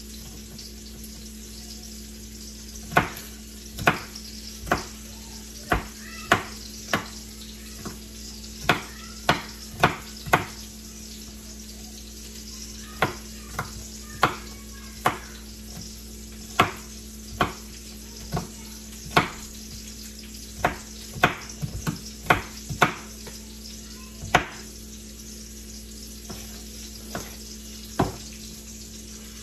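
Chef's knife chopping green bell pepper on a plastic cutting board: sharp, irregular knocks, some in quick runs, over a steady sizzle of salmon frying in a cast-iron skillet.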